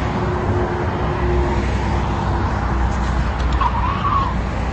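Car engines and tyre noise on a freeway, a heavy steady rumble, with a brief wavering squeal about three and a half seconds in.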